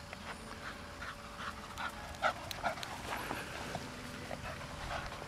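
Staffordshire Bull Terrier panting hard as it runs up close after a ball: a quick series of short breaths, about three a second, loudest a little past two seconds in.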